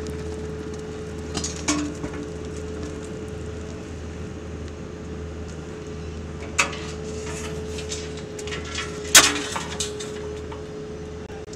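Hard plastic lid of an in-ground cable vault knocking and clattering as it is lifted off and set down, a few separate knocks with the loudest about nine seconds in. A steady hum holding one tone runs underneath.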